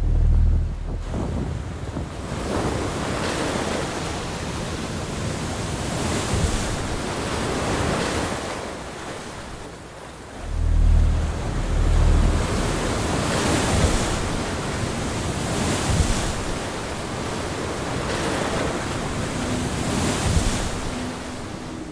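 Ocean surf breaking and washing up a sandy beach, the rush rising and falling every few seconds, with wind buffeting the microphone in low rumbling gusts near the start and again about ten seconds in.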